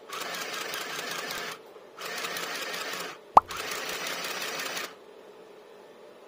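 A compact electric sewing machine runs in two bursts of stitching through satin fabric: a short one at the start and a longer one of about three seconds that stops about five seconds in. A single sharp thump, the loudest sound, comes a little past three seconds in.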